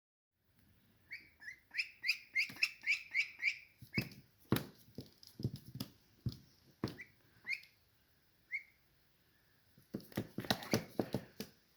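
A duckling peeping: a quick run of short, high peeps in the first few seconds, then a few single peeps. Scattered sharp knocks and taps, thickest near the end, sound in between.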